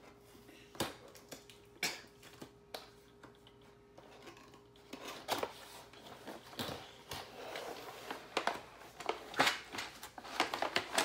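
Toy game box being opened and its packaging handled: scattered clicks and taps at first, then denser rustling and crinkling from about five seconds in.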